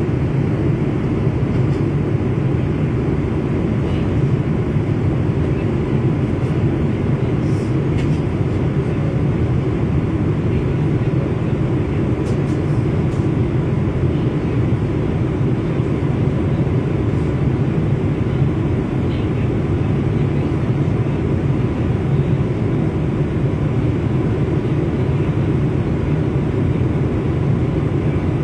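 Steady drone of an airliner cabin in flight, a constant low rush of engine and air noise.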